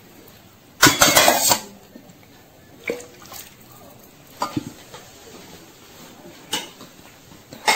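Water poured from a steel cup into a glass bowl of rice, a short splash about a second in, followed by several light clinks and knocks of steel and glass dishes.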